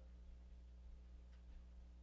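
Near silence: room tone with a steady low hum, in a pause between sentences of speech.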